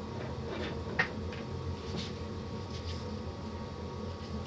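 Small clicks and taps of connectors and a ribbon cable being handled and pushed onto a stepper-motor driver circuit board, with one sharp click about a second in and a few fainter ticks after, over a steady background hum.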